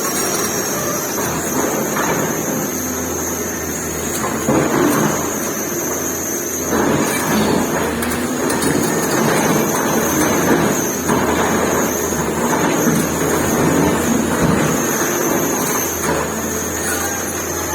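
Excavator diesel engine running steadily while its bucket breaks up a building, with bursts of rubble crumbling and falling from about four seconds in, busiest in the middle of the stretch.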